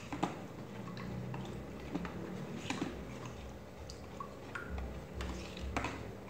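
Metal spoon stirring a liquid gelatin-and-milk mixture in a plastic bowl, with irregular light clicks and taps of the spoon against the bowl and a little sloshing.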